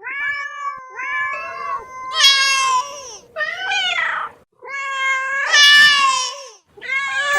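Domestic cats meowing: a run of long, drawn-out meows, some overlapping one another, with short breaks between them.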